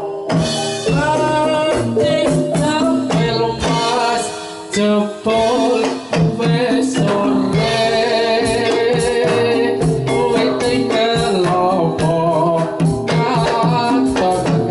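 Javanese gamelan music for jathilan: a singer's voice over ringing gongs and kettle-gongs, driven by a kendang hand drum played with the palms.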